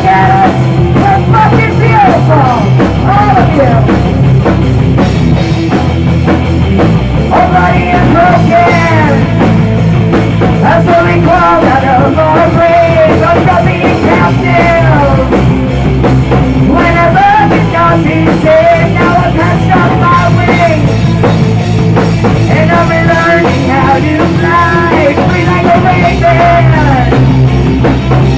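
Loud live rock band playing, with drums and a singer's voice over the band.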